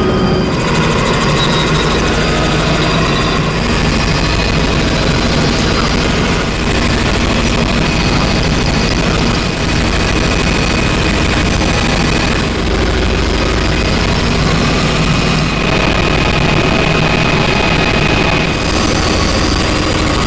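Helicopter in flight heard from inside the cockpit: the engine and rotor make a steady, loud cabin noise.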